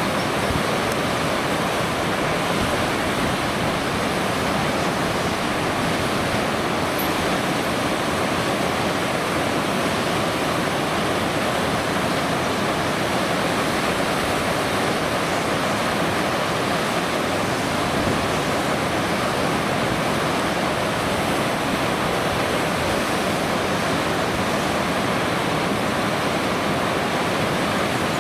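Rushing water running steadily, an even, unbroken noise that holds the same level throughout.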